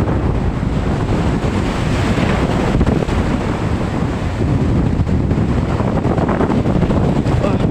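Wind buffeting the microphone in a steady low rumble, with waves washing in behind it.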